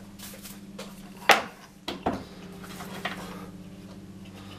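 A cast-iron bench plane handled on a wooden workbench: one sharp knock about a second in, then a few lighter clicks, over a steady low hum.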